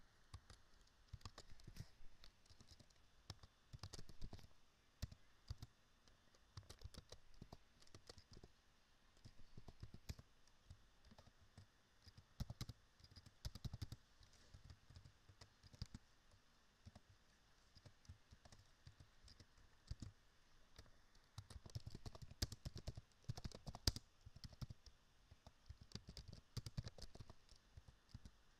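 Faint typing on a computer keyboard: short bursts of key clicks with pauses between them.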